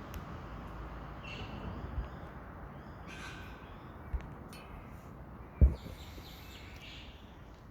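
Birds calling faintly and on and off over a steady low rumble, with three short low thumps; the loudest thump comes about two-thirds of the way through.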